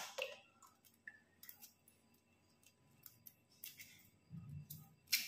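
Boiled egg being peeled by hand: faint, scattered small crackles and clicks of the shell cracking and coming away, with a sharper crack at the start and another near the end.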